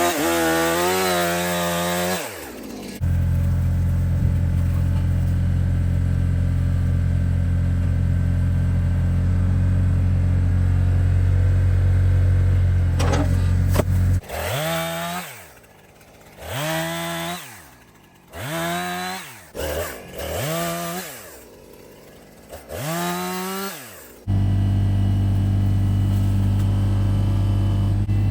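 Husqvarna 455 Rancher two-stroke chainsaw revving: a high note at the start that dies away, then five short blips in a row about halfway through, each rising and falling, with quieter gaps between. Between the revs a steady low engine hum runs for several seconds, and it returns near the end.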